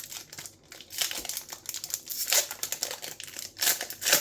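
Plastic foil booster-pack wrapper crinkling as it is handled and opened, a dense run of crackly rustles with louder crinkles about two seconds in and again near the end.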